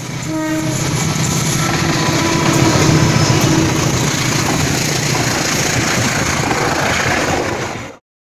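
Diesel locomotive-hauled passenger train running past on the rails with a heavy rumble, with a short horn note at the start. The sound cuts off abruptly near the end.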